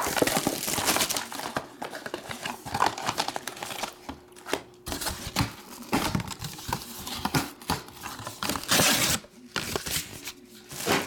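Plastic shrink wrap from a trading-card box being torn off and crumpled, crinkling and rustling in irregular bursts, with a louder burst of crinkling near the end.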